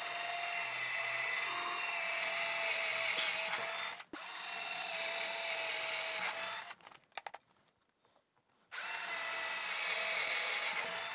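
Black & Decker 12-volt cordless drill running with a 1/4-inch bit, boring pilot holes through hardboard fascia and the wood behind it: a steady motor whine in three runs, stopping briefly about four seconds in and again for about two seconds past the middle, with a few light clicks in that gap.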